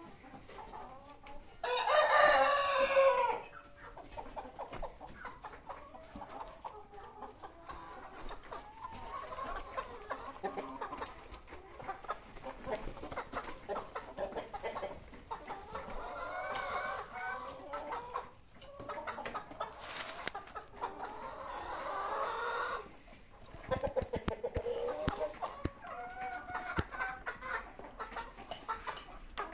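A rooster crows once, loud, about two seconds in, and hens cluck and call on and off for the rest of the time.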